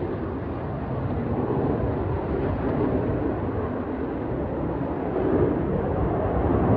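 Blue Angels F/A-18 jet in flight, heard as a steady rumble of jet noise from the distance, swelling slightly near the end.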